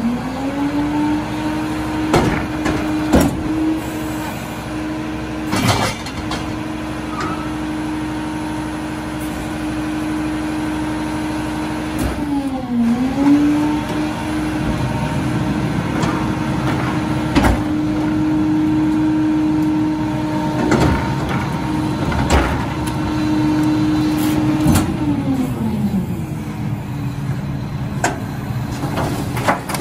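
Mack LR rear-loader garbage truck's engine revved up to a steady high idle to run the body's hydraulics, dipping briefly about halfway and dropping back to idle near the end. Several sharp metal clanks and bangs from the dumpster and packer gear come over it.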